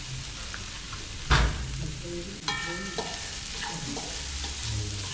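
Chicken pieces with spices sizzling as they fry in a pan while being stirred. A loud knock, likely the utensil against the pan, comes about a second in, followed by a short ringing clink a moment later.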